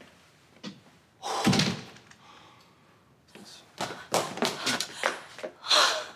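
A loud, dull thunk about a second and a half in, then a quick run of footsteps on a hard floor.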